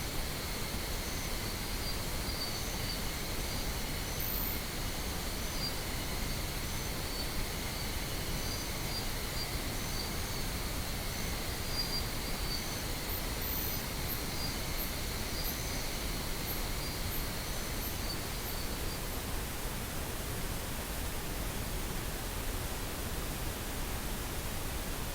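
Steady pink noise, an even hiss heavy in the low end, played as a sleep-therapy sound. For the first part, faint high steady tones and short high chirps sit over the noise; they stop shortly after the midpoint, leaving the noise alone.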